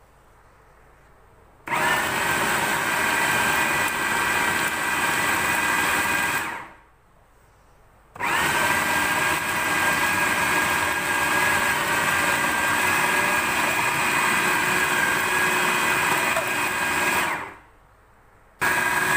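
Electric food processor motor grinding boiled beef and chana dal into a thick paste, run in pulses. It starts about two seconds in and runs for about five seconds, then winds down. It runs again for about nine seconds, stops, and starts once more near the end.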